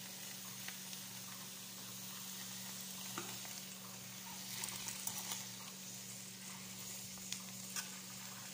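Chopped leafy greens and celery frying in oil in a nonstick pan with a faint, steady sizzle as they wilt, while a metal turner stirs them, clicking and scraping against the pan now and then.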